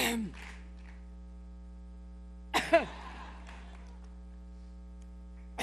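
A woman coughing in short bursts during a severe coughing fit: one at the start, a quick double cough about two and a half seconds in, and another at the end. A steady electrical hum runs underneath.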